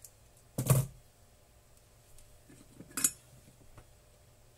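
A dull thump and clatter about half a second in, then a few light clicks and a sharper clink around three seconds in: tools, wire and small parts being handled on a workbench.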